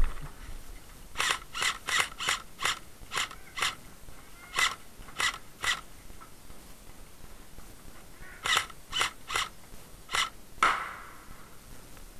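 Airsoft rifle firing single shots in quick strings: about seven sharp cracks in the first few seconds, three more shortly after, then five more near the end.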